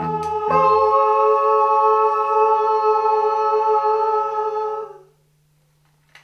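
Voices singing one long held "aah" chord in harmony, coming in over the last few low bass notes and holding steady for about four seconds before fading out about five seconds in.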